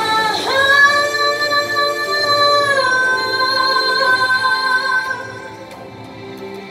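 Women's voices singing a Sumi Naga song unaccompanied, in harmony: a lead voice holds a long high note, then steps down to another long note, over lower voices sustaining steady notes. The singing fades about five seconds in.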